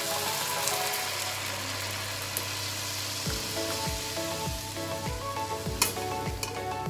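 Hot oil tempering in a frying pan sizzles as cooked mixed dal is poured in, then a wooden spatula stirs it, with a sharp click near the end. Background music plays throughout, and a steady beat comes in about three seconds in.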